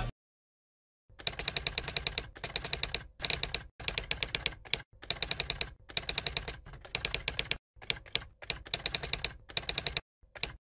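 Rapid keystroke-like clicks in about a dozen short runs, each run a fraction of a second to a second long, with dead silence between the runs.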